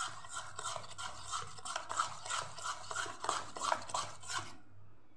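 Spoon beating dhokla batter quickly in a stainless steel bowl, about three scraping strokes a second, stopping near the end. The batter is being mixed fast just after Eno fruit salt was added and activated with water.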